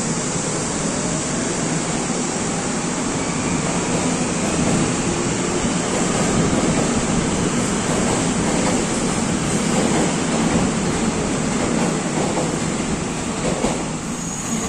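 Seoul Subway Line 9 electric train pulling out of the station and accelerating past, with a steady loud rumble of wheels on rail and running gear. It fades slightly near the end as it moves away.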